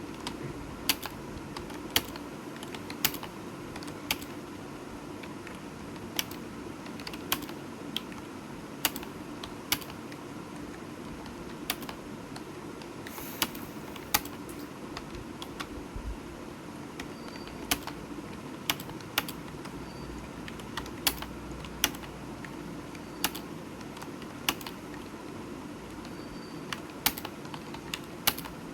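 Computer keyboard keys clicking in an uneven run of typing, with louder strikes about once a second and softer key presses between, over a steady low hum.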